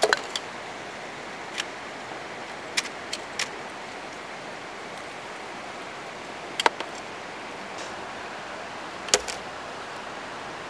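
Fishing reel being handled and fitted back together after popping off: scattered sharp clicks and snaps over the steady rush of creek water.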